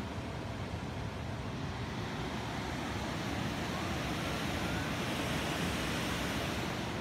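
River water running over shallow rapids in a steady rush, growing a little louder partway through.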